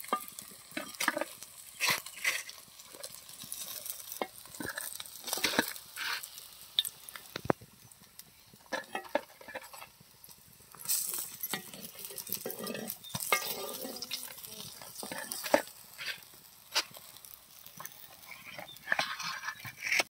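Small parrotfish frying in oil in a pan, sizzling, while a metal spatula scrapes and taps against the pan in many irregular strokes.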